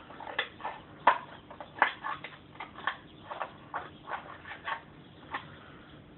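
Scissors snipping lengthwise through a thin plastic bottle to cut it into petal strips: about a dozen short, sharp cuts at an uneven pace, stopping a little before the end.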